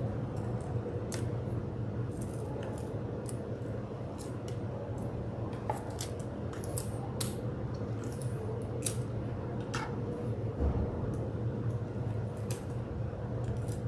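Plastic wrap crinkling and clear adhesive tape being pulled from a dispenser and pressed onto the back of a canvas: a run of sharp, irregular clicks and crackles.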